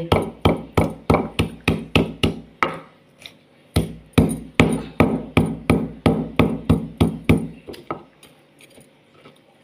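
Stone pestle pounding ginger in a stone mortar (cobek): sharp stone-on-stone knocks, about four a second. There is a brief pause about three seconds in, then the pounding resumes and stops near the end. The ginger is being crushed before the spice paste is ground.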